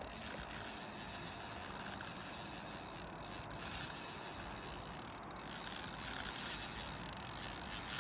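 Fishing reel's drag buzzing steadily as a hooked salmon makes a run and pulls line off the spool, with a brief break a little past halfway.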